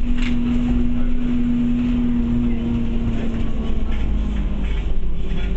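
Bus engine and drivetrain running as the bus drives, heard from inside the passenger saloon: a steady low drone with road rumble. A steady whine fades out about halfway through.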